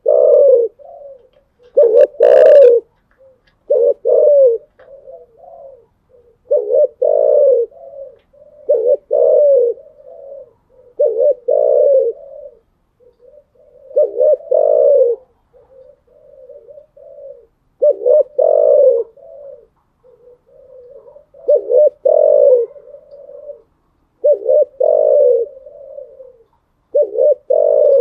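Spotted dove cooing: short, low, hollow phrases repeated about every two to three seconds.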